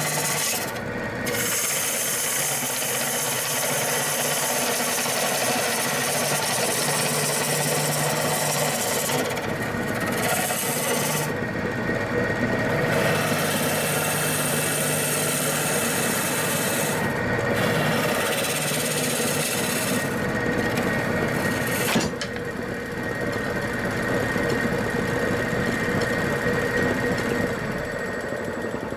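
Bowl gouge cutting a large maple bowl blank spinning on a wood lathe: a steady scraping, rasping cut with shavings flying, made aggressively with the tool rest set too low. One sharp knock comes about three-quarters of the way through, and the cutting stops near the end.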